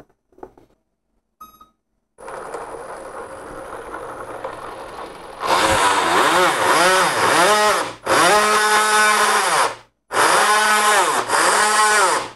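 Electric motor of a 3D-printed RC jet boat spinning the jet impeller and shaft on the bench under radio throttle. It first runs slowly and steadily, then from about five seconds in it is revved in three loud bursts, its whine rising and falling again and again as the throttle is worked.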